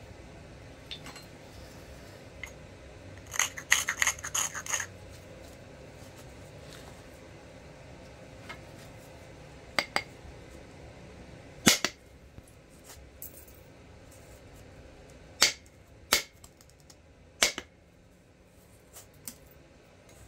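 Flint knapping with an antler punch: a quick run of small clicks and scratches about three and a half seconds in, then several single sharp clicks of antler on flint a few seconds apart, the loudest just before the middle.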